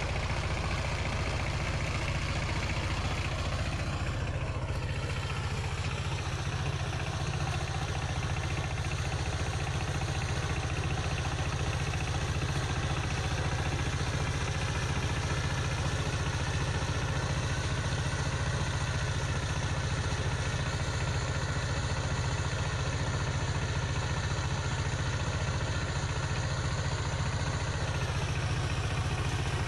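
Two-wheel power tiller's single-cylinder diesel engine running steadily under load while its rotary tiller churns the soil.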